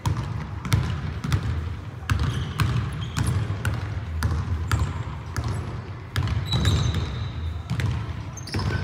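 Basketball bounced repeatedly on a hardwood gym floor as it is dribbled, in an irregular run of knocks, with a short high squeak about six and a half seconds in.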